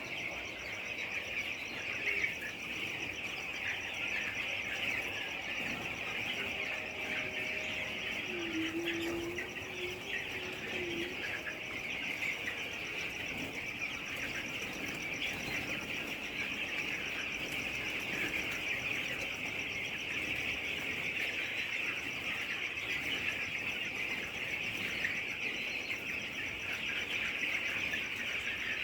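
A large flock of broiler chickens calling continuously, with many overlapping high calls blending into a steady chorus.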